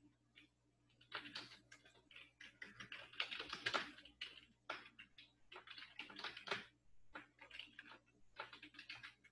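Computer keyboard typing in quick runs of keystrokes, starting about a second in, faint on the microphone over a steady low hum.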